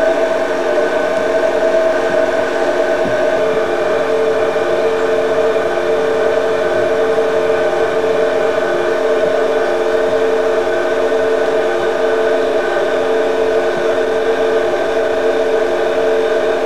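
Six-station ERWEKA DRT chewing gum tester running, its drive motors giving a steady hum of several held tones. The mix of tones shifts slightly about three seconds in.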